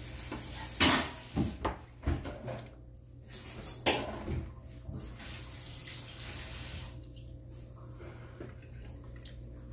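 A kitchen tap running, with a few sharp clinks and knocks of dishes and cutlery over it. The loudest knock comes about a second in.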